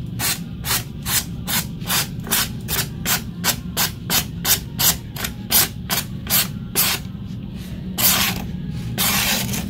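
Deli DL4260 utility knife's SK2 blade slicing thin strips off a sheet of paper: quick, even cuts about two to three a second, then two longer strokes near the end. The clean, easy cuts are the sign of a super-sharp blade.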